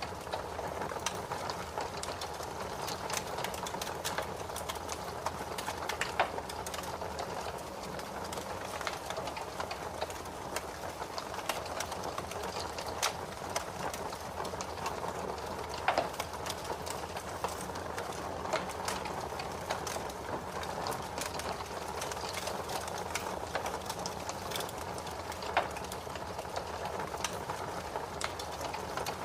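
Wood fire crackling in a fireplace: a steady stream of small crackles and snaps over a soft hiss, with a few louder pops about six, sixteen and twenty-five seconds in.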